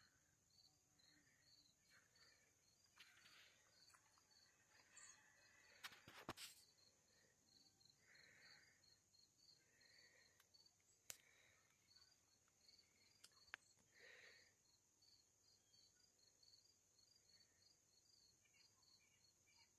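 Near silence outdoors, with faint crickets chirping steadily at about two to three chirps a second and a few soft clicks.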